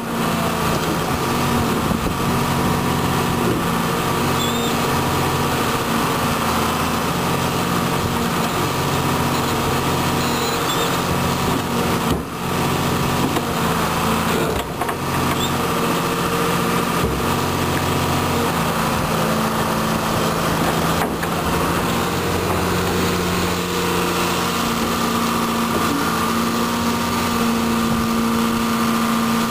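John Deere 690B excavator's turbo diesel engine running steadily under working load while the machine digs and swings a loaded bucket. The engine note holds an even pitch, with two brief dips in loudness midway.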